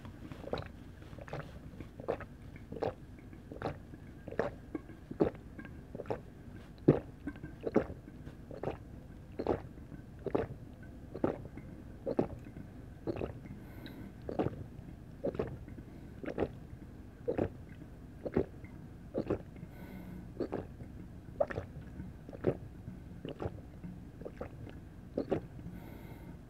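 A person gulping a sports drink straight from a large plastic bottle without stopping, one swallow after another at a steady pace of about three every two seconds.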